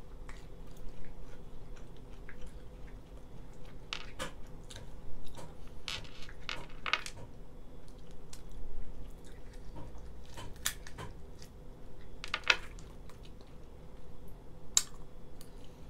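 Boiled lobster shell being cracked and picked apart by hand, with scattered sharp clicks and crackles several seconds apart, along with chewing.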